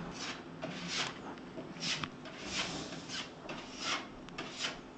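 Plastic spreader scraping a finishing coat of two-part body filler across a plasterboard wall, in repeated even strokes about every two-thirds of a second.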